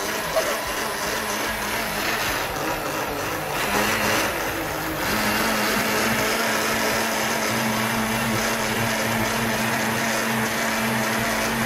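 Small countertop blender running, blending kiwi and apple into juice: a steady motor whir with a constant hum, getting louder about four seconds in.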